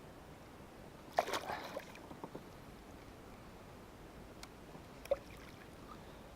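Small knocks and clatter on a kayak with water splashing and trickling against it. A brief burst of sharper clatter and splashing comes about a second in, and a few single clicks follow.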